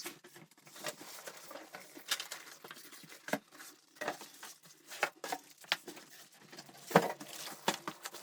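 Cardboard box and plastic packaging being handled as a boxed printer is worked out of its carton: scattered crinkles, rustles and light knocks, with the loudest knock about seven seconds in.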